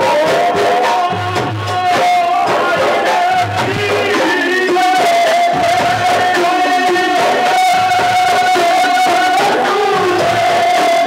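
Rajasthani Holi dhamal folk music: chang frame drums beating a slow, deep rhythm about every two seconds, with bansuri flute and singing over a long held high note.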